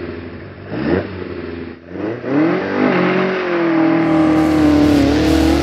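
Rally car engine revving: two quick throttle blips, then the revs climb about two seconds in and hold high and steady.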